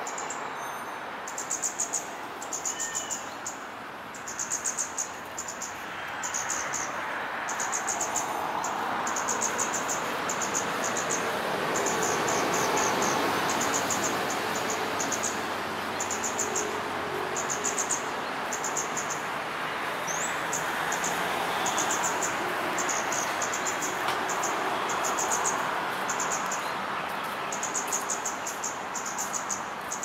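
Male scarlet-backed flowerpecker calling: short bursts of rapid, high-pitched staccato clicks, repeated about once a second, over a steady background hum.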